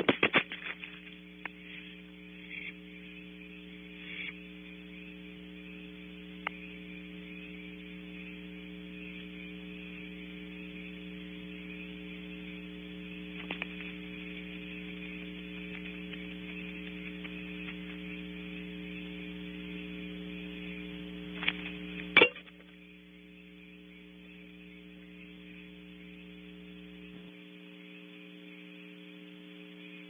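Steady electrical hum made of several low steady tones, with a few faint clicks scattered through it and one sharp click about 22 seconds in, after which the hum drops a little in level.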